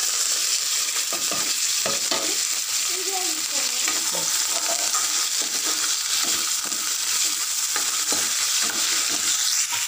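Garlic cloves, curry leaves and green chillies sizzling steadily in hot oil in a kadai while a spatula stirs them: a tempering (tadka) being fried.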